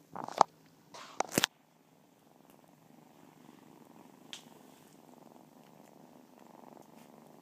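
Several tabby kittens purring together: a steady low rumble with a fine rapid pulse. In the first second and a half there are two loud, brief rustling knocks close to the microphone.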